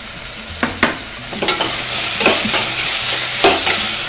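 Oil sizzling under onions, tomatoes and spices in an aluminium pressure cooker as a metal slotted spoon stirs them, scraping and clinking against the pot. The sizzle grows louder about a second and a half in, when the mixture is turned over.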